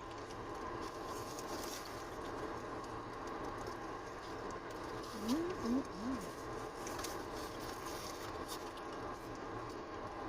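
Person chewing a first bite of a bacon cheeseburger, with faint mouth clicks over a steady background hum. About five seconds in come three short hummed "mm" sounds of approval.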